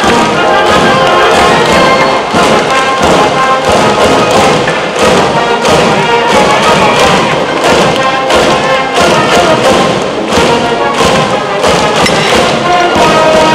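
School brass band playing baseball cheering music, horns holding sustained notes over a steady beat of drums.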